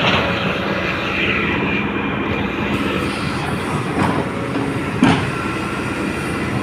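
Large excavator's diesel engine running at close range, a steady rumble with two sharp metallic clanks about four and five seconds in.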